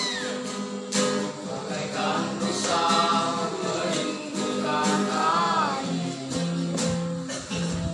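A song: singing over instrumental accompaniment with a regular plucked beat.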